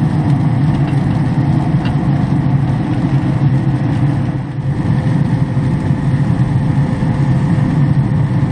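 Traeger wood-pellet grill running with its lid open: a steady low rumble from the fan and firepot, with a faint constant hum.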